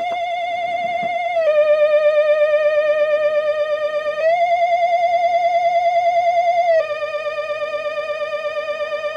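Spooky Halloween sound-effect loop: a wavering, theremin-style electronic tone with a fast vibrato that slides back and forth between two notes, changing about every two and a half seconds.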